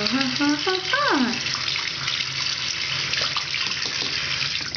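Bathroom faucet running a steady stream into a sink. Within the first second or so there are a few short voice sounds from a child, the last one a falling glide.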